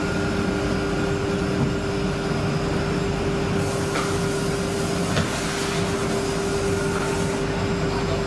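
Woodworking panel machinery running with a steady hum and one constant tone. A louder hiss comes in for about four seconds in the middle.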